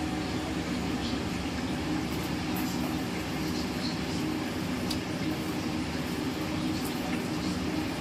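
Steady low machine hum with a few faint clicks.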